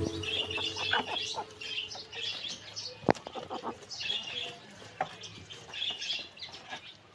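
Small birds chirping in repeated short bursts, with scattered soft taps and one sharper knock about three seconds in.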